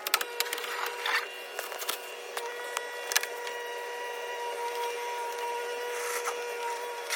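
Sharp plastic clicks and rubbing as trim panels are pressed back into place, over a steady high hum.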